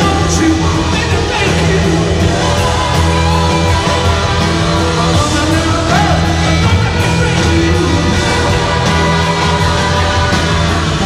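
Live rock band playing electric guitars, bass and drums, with singing over it.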